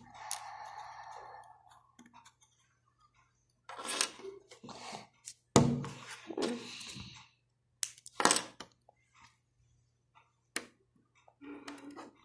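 Plastic LEGO pieces clicking and rattling as small round pieces are handled and pressed onto a LEGO plate by hand, in irregular clicks and short rattles with quiet gaps between them.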